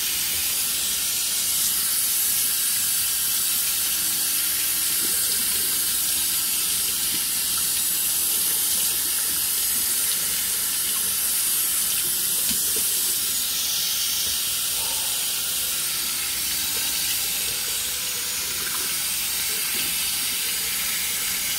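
Kitchen faucet running steadily into a stainless steel sink, the stream splashing over bass fillets being rinsed by hand under it.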